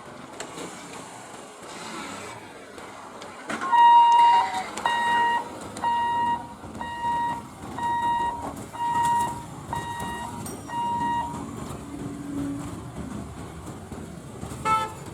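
An electronic warning beeper sounds eight times, about once a second, over road traffic noise. A short horn toot follows near the end.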